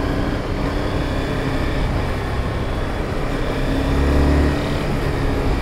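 Motorcycle engine running at a steady road speed under wind noise rushing past the rider. A low rumble swells briefly about four seconds in.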